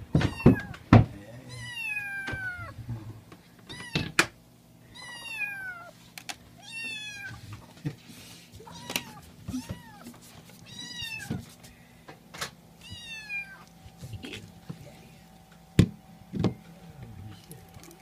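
Calico kitten meowing to beg for food: about seven high meows, each falling in pitch, spread a second or two apart, with several sharp knocks in between.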